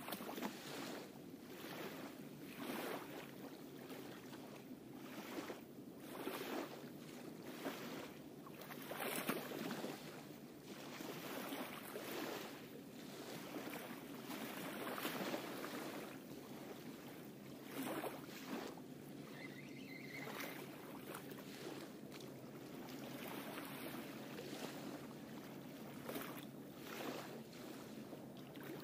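Hands kneading and mixing damp feeder groundbait in a bucket: rustling, squishing strokes about one every second or so, uneven in strength.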